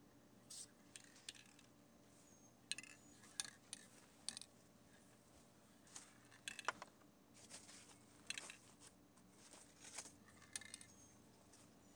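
Faint, scattered clicks and light rattles, a dozen or so brief sharp ticks at uneven intervals over a low steady hum.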